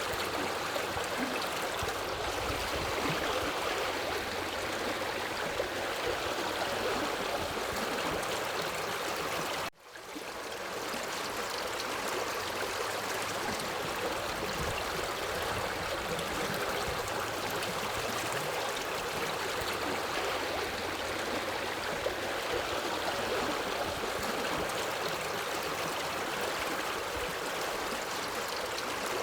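A forest river flowing steadily, an even rush of water. About ten seconds in it cuts out for a moment and fades back in.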